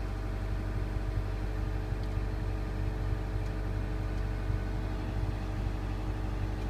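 Diesel engine and hydraulics of a Grove GMK5120B all-terrain crane running steadily, a low rumble with several steady tones over it, heard from inside the cab. The telescoping cylinder is being retracted under emergency operation.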